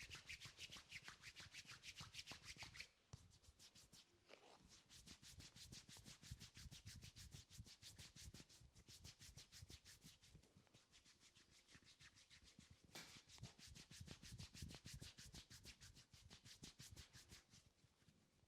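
Hands rubbing camphor oil into the head and hair in quick, rhythmic strokes, several a second, a little softer after about three seconds.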